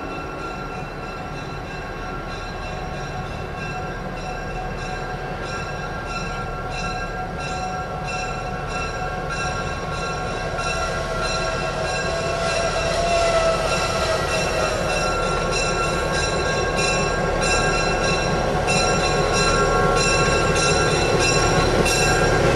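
EMD GP7 diesel locomotive approaching, its engine and wheels on the rails growing steadily louder. A rhythmic ringing about twice a second rides over it and grows louder too.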